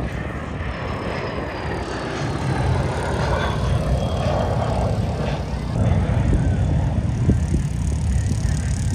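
Jet aircraft flying over: a deep rushing rumble that grows louder toward the middle, with a faint whine falling in pitch.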